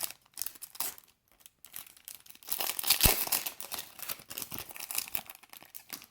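Foil Pokémon booster pack wrapper being crinkled and torn open: irregular rustling and crackling that thickens about two seconds in, with one sharp click about three seconds in.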